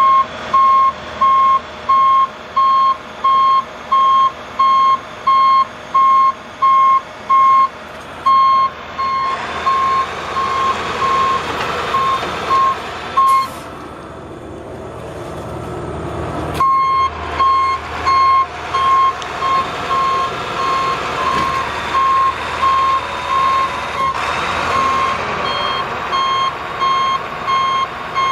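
Warning alarm on an Altec digger derrick truck beeping steadily at about two beeps a second as the outriggers are lowered, with the truck running underneath. The beeping stops for about three seconds midway, then starts again.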